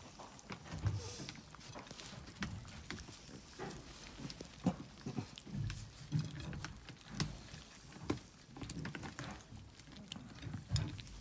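A litter of Kangal puppies eating soft solid food together: scattered quick smacking and lapping sounds mixed with short, low, pig-like grunts.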